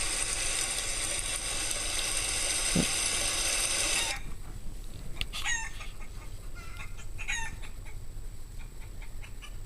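Chicken sound effects played through a MacBook Pro's speakers: a dense, steady chicken sound that cuts off suddenly about four seconds in, followed by short separate clucks.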